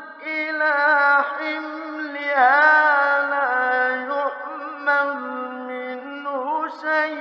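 A male Quran reciter chanting in the melodic tajweed style in maqam nahawand, drawing out long ornamented notes that waver up and down, with a few short breaks between phrases.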